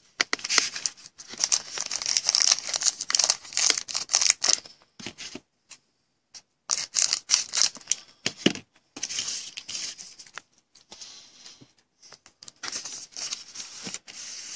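Plastic trading-card pack wrapper being torn open and crinkled by hand, in several bouts of crackling with short pauses between them.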